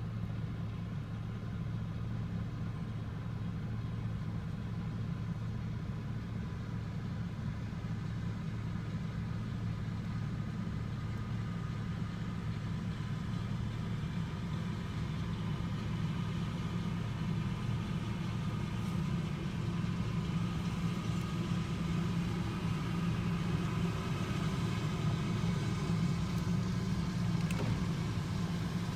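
A vehicle engine running steadily at a low, even hum, growing slightly louder in the second half.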